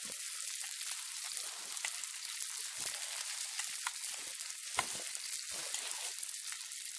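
Pieces of fish sizzling in a frying pan on a portable gas camping stove, a steady hiss with many scattered pops and crackles.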